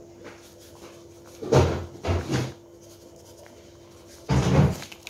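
Plastic sachet of sinigang mix crinkling and being shaken as its powder is poured into the pot, in three short bursts, over a faint steady hum.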